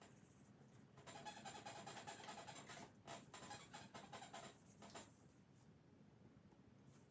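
Faint scratchy rubbing in two strokes of about two seconds each, then fainter.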